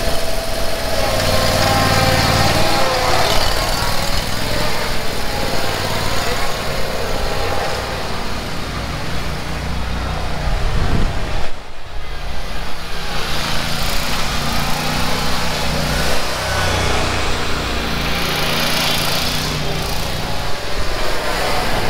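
Yakta YXR zero-turn mower's engine running as the mower is driven around, the engine note changing as it manoeuvres, with a brief dropout about halfway through.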